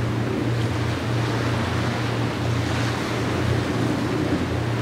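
Steady noise of wind and waves, with a low hum underneath that swells and dips.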